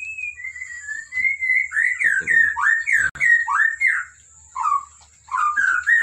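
White-rumped shama whistling a quick string of short falling notes, then a few rising notes near the end.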